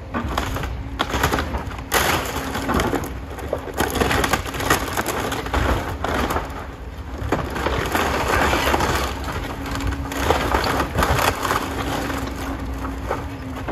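Wood-frame house being torn apart by an excavator: timber and siding cracking, splintering and crashing in repeated surges, with the excavator's engine humming steadily underneath.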